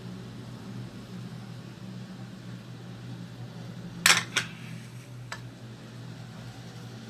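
Steady low hum, like an electric fan. About four seconds in come two sharp clicks close together, then a fainter click about a second later, typical of utensils or dishes knocking while eating.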